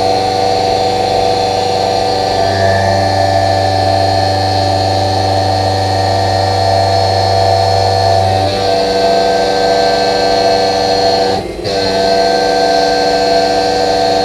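Tormach 1100MX CNC mill end-milling steel with a Kennametal HARVI III end mill: a steady, loud cutting drone with several constant spindle tones. A low hum underneath drops out briefly early on and stops about two-thirds through, and the cutting noise dips for a moment near the end.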